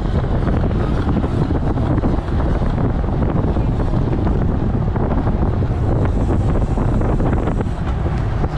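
Wind rushing over the microphone of a camera on a road bike moving at about 23 mph: a loud, steady, low rumble.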